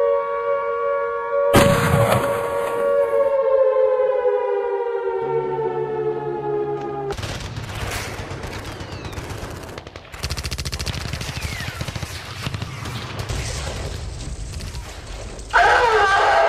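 A sustained droning tone slides slowly down in pitch, with a loud hit about a second and a half in. From about halfway a rapid rattle of gunfire-like shots takes over, the sound of laser-tag guns in a firefight.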